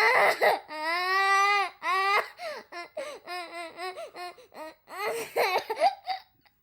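A young child crying: a long wail, then a run of short, quick sobbing gasps, about three or four a second, then a last wailing burst that cuts off about six seconds in.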